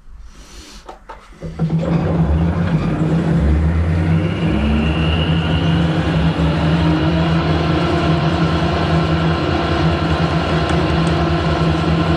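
Harrison lathe switched on about a second and a half in, its motor and drive coming up to speed with a rising whine, then running steadily with the chuck and workpiece spinning.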